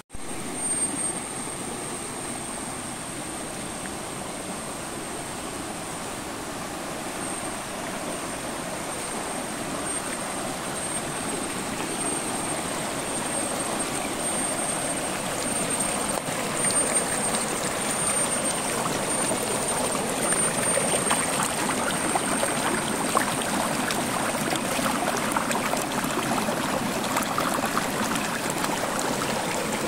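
Shallow rocky river rushing and splashing over stones in a steady wash. It grows louder and more splashy about halfway through as it is heard closer to the water.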